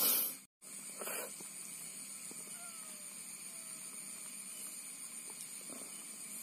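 Quiet night swamp ambience with a steady, even high-pitched drone, opened in the first second by two short hissing rustles with a brief cut-out of all sound between them; a few faint short gliding calls come a few seconds in.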